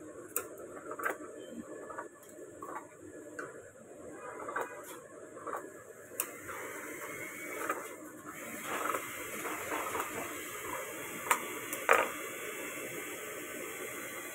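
Tailor's scissors cutting through shirt-collar fabric: a run of short snips and blade clicks every half second or so. A steady hiss comes up about six seconds in, and the two sharpest clicks come near the end.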